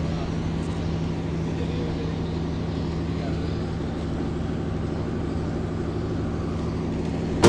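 An engine running steadily, a constant low drone with an even hum, with faint voices under it.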